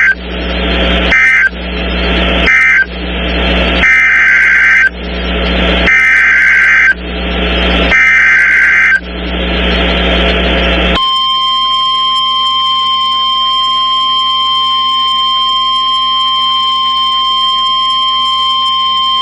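NOAA Weather Radio Emergency Alert System tones: a series of roughly one-second SAME data bursts with short gaps between them, marking the end of one alert and the header of the next. About 11 seconds in, these give way to the steady 1050 Hz warning alarm tone, which holds at an even level.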